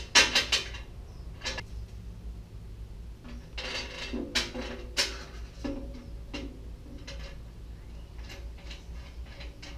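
Irregular metal clanks and clicks as a steel bumper bracket, bolts and hand tools are handled against a chrome truck bumper, over a low steady hum.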